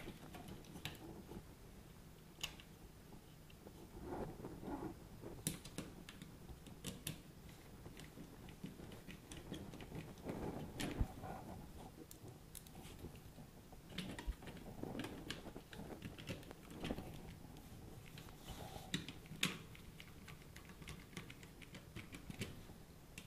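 Scattered light clicks and rustles of hands working a hand screwdriver, screws and the plastic back plate of a wired gas detector as the plate is screwed to the wall.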